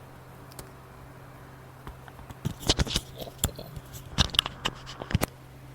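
Irregular sharp clicks and light scraping of small hard objects being handled, starting about two and a half seconds in, over a steady low hum.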